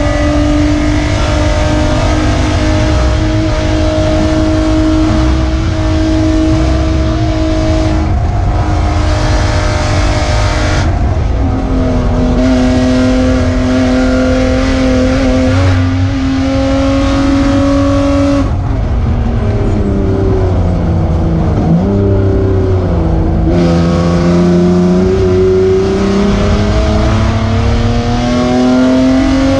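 BMW E36 Spec3 race car's inline-six engine under hard throttle, heard from inside the stripped cabin and running loud with its muffler failed. The pitch drops at a gear change about a third of the way in. The revs fall and dip under braking about two-thirds in, then climb steadily as the car accelerates again.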